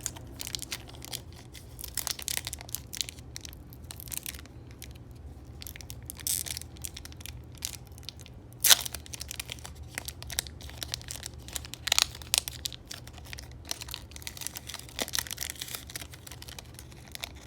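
Pokémon booster pack wrapper being torn open and crinkled, irregular crackling with a few sharp snaps, the loudest a little under halfway through, over a steady low hum.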